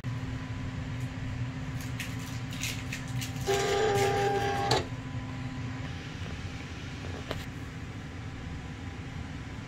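Small electric cutting machine, a Silhouette CAMEO 4, running over a steady low hum: a few light clicks, then a brief steady motor whine for just over a second, about three and a half seconds in.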